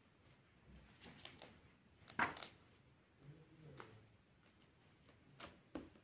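Paper rustling and a few soft taps as a book page is turned by hand, loudest about two seconds in.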